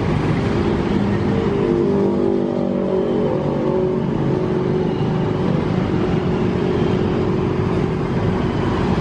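Diesel engine of a Mercedes-Benz OH-chassis coach idling close by: a steady low rumble, with its engine tones shifting briefly in pitch between about two and four seconds in.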